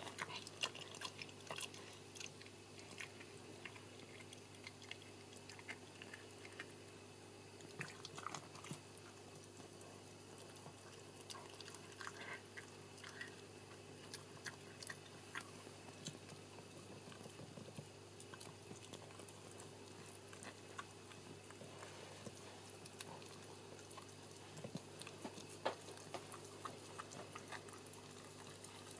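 Shetland sheepdog dam licking and chewing at her newborn puppy's birth membranes: faint, scattered wet clicks and smacks over a steady low hum.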